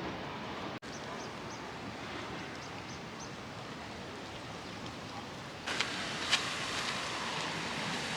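Outdoor city ambience: a steady hum of distant traffic and street noise, with faint high chirps early on. About two-thirds of the way in it turns louder and brighter, with a few sharp clicks.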